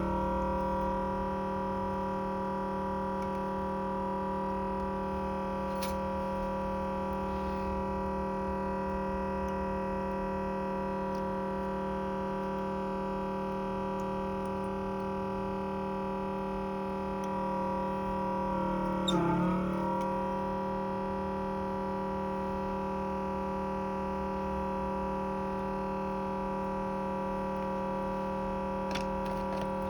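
Steady electric motor hum with several fixed tones. About nineteen seconds in, the pitch dips briefly and comes back, as a motor does under a momentary load.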